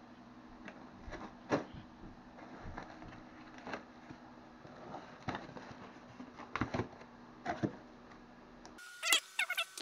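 Utility knife slitting packing tape on a cardboard box and the cardboard flaps being pulled open: scattered scrapes and knocks every second or so over a low steady hum. Near the end, a quick run of crinkly handling noise.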